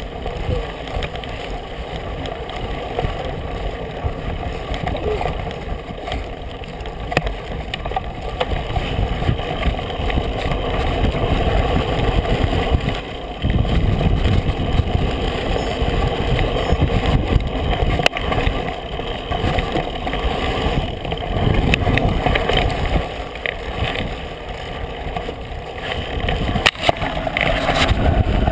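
Mountain bike riding a dirt singletrack: knobby tyres rolling on dirt, the bike and handlebar mount rattling and knocking over bumps, and wind rumbling on the microphone, louder from about halfway as the speed picks up.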